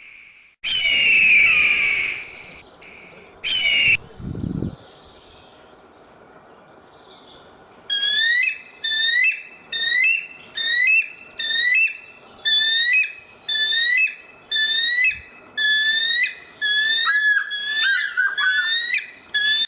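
Shrill whistled animal calls: two long wavering calls near the start, then a run of short swooping calls repeated a little over once a second.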